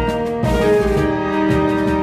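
Background music: held melodic notes that change every half second or so over a low bass pulse.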